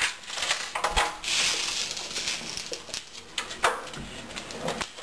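Clicks, knocks and rustling as a door is unlatched and opened by hand: a sharp click about a second in, then about two seconds of hissing rustle, then scattered knocks.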